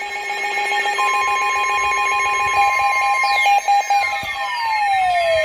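Emergency alert tones announcing a new weather warning: several steady electronic tones, one pulsing rapidly, joined about a second in by a steady higher tone. From about three seconds in, a tone falls steadily in pitch like a siren winding down.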